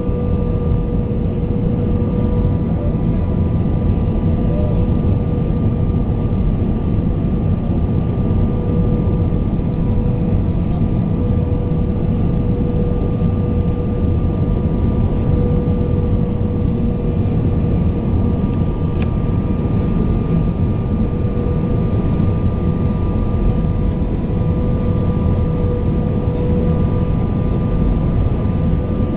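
Airbus A320 cabin noise in flight on the landing approach: the steady rush of airflow and engines, with a steady hum near the middle and fainter higher tones held above it.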